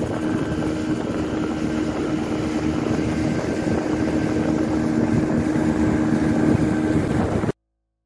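Motorboat engine running steadily under way, with the rush of water and wind; the sound cuts off abruptly near the end.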